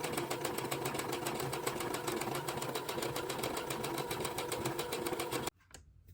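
Brother computerised sewing machine running steadily, stitching with a rapid, even rhythm of needle strokes, then stopping abruptly about five and a half seconds in.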